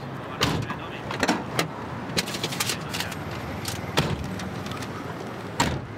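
A car running steadily, with a scatter of sharp clicks and knocks on top; the loudest come about half a second, four seconds and five and a half seconds in.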